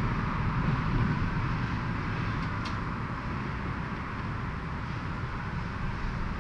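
Steady background ambience: a low rumble with a hiss above it, and one faint brief tick about two and a half seconds in.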